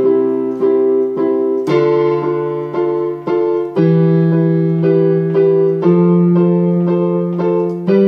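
Electronic keyboard in a piano voice playing with both hands. The left hand holds one bass note for each bar of four beats while the right hand strikes a chord on every beat. The bass note changes about every two seconds, stepping upward as the chords move through a progression.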